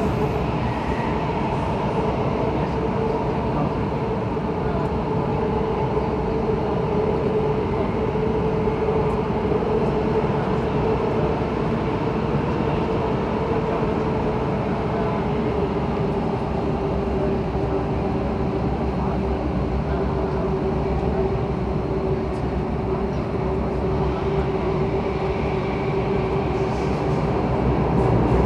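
Bombardier C951 metro train running, heard from inside the car: a steady rumble with a steady whine whose pitch eases slightly past the middle, growing a little louder near the end.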